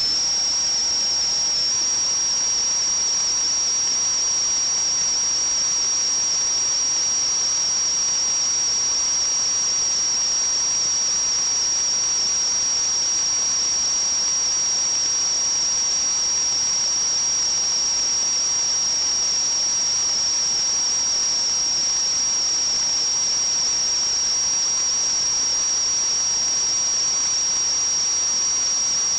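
Plumbing under water pressure hissing, with a steady high-pitched whistle over the hiss.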